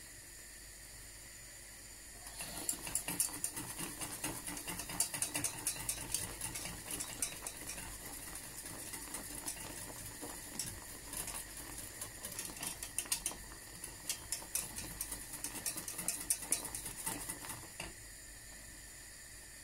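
Wire whisk beating bubbling butterscotch caramel sauce in a stainless steel saucepan, the wires clicking and scraping fast against the pan over a steady faint hiss. The whisking starts about two seconds in and eases off shortly before the end.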